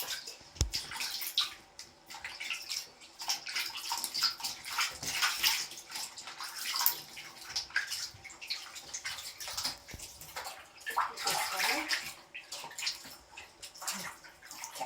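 Water splashing and running as a kitten's shampoo is rinsed off in a bath, in uneven surges.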